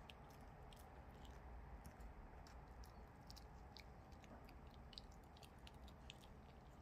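A dog chewing a chicken sashimi treat: faint, irregular clicks and smacks of its teeth and mouth.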